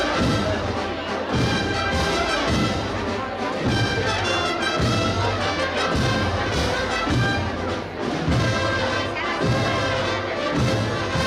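Street brass band playing a Holy Week processional march, with sustained brass notes over a steady low beat.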